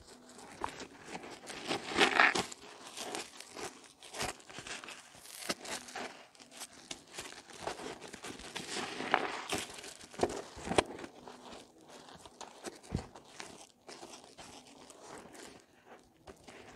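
Soaked bar soap squeezed and mashed by hands in a basin of foamy water: irregular wet squishes and crackling lather, loudest about two seconds in.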